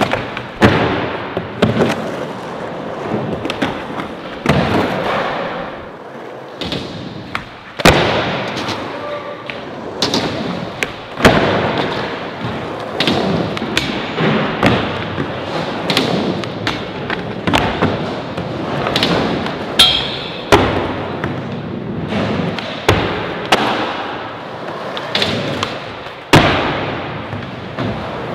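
Skateboards rolling over wooden ramps and concrete, with many sharp clacks and thuds of boards popping and landing, and a board sliding along a metal rail.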